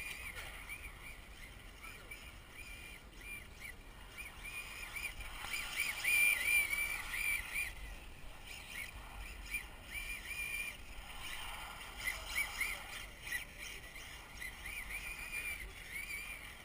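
High-pitched whine from a radio-controlled drift car's brushless electric motor, wavering up and down in short arches as the throttle changes. Rushing noise swells in twice, around six and twelve seconds in.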